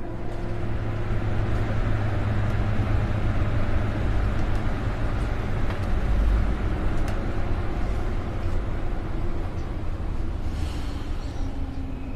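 Commuter train running, heard from inside the carriage: a steady low rumble with a few faint clicks, swelling slightly about halfway through.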